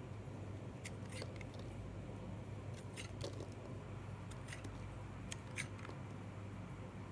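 Blade cutting dry soap: scattered crisp crackles and crunches at irregular intervals.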